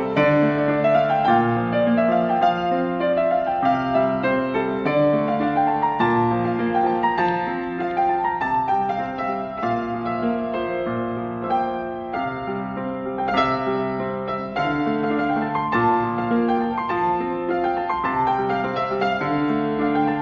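Solo piano playing a gentle piece, rippling rising figures over held bass notes.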